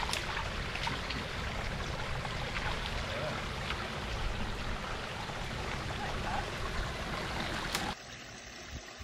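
Water running over the rocks of a shallow garden-pond stream, with light splashing from a French bulldog wading in it. Near the end the sound drops abruptly to a fainter, duller wash of water.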